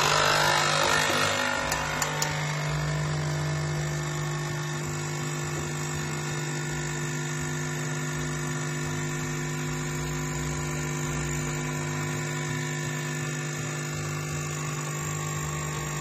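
DeLonghi Nespresso capsule coffee machine running as it brews: a steady pump hum, a little louder for the first couple of seconds, with two faint clicks about two seconds in. A noisier, older machine, more than five years old.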